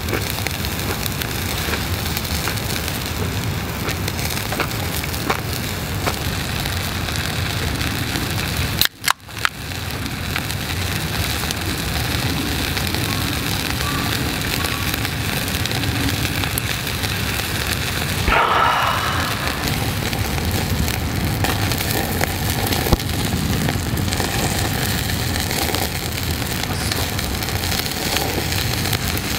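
Chicken skewers sizzling over a charcoal shichirin grill, a steady hiss with scattered small crackles and pops as fat drips onto the coals. The sound briefly drops out about nine seconds in.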